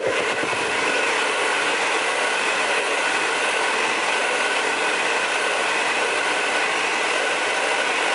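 A Diva hair dryer switched on and blowing steadily, a loud rushing whine, drying the freshly sprayed wig lace so it turns tacky.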